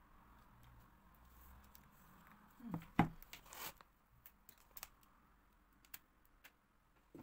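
Plastic containers handled on a tabletop. A thin pour of liquid stone-powder casting mix fades out at the start. About three seconds in comes a sharp knock as a plastic tub is set down, with rustling around it and scattered small clicks after.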